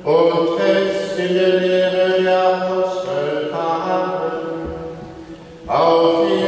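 Liturgical chant sung in a reverberant church, long held notes with rich overtones. The singing fades about five seconds in, and a new phrase begins strongly near the end.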